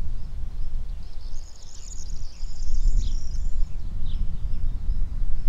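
Small birds chirping and twittering, with a warbling burst of high notes from about a second and a half to three and a half seconds in, over a steady low outdoor rumble.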